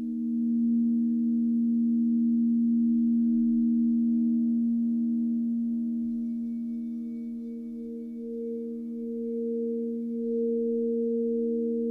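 Crystal singing bowls being rubbed around the rim with a mallet, several sustained tones sounding together and wavering slightly. A higher tone swells louder about eight seconds in.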